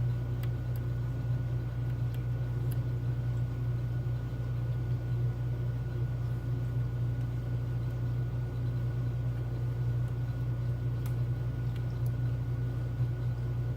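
A steady low hum with a thin high whine above it, and a few faint clicks of lock picks working in a Keymark core lock.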